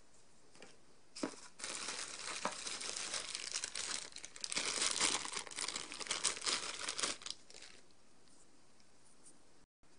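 Plastic bubble-wrap packaging crinkling and rustling as it is handled, a dense crackle that starts about a second in, is loudest around the middle and stops shortly before the end.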